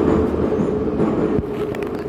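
Metro train running, heard from inside the car: a steady loud rumble with a steady droning tone running through it.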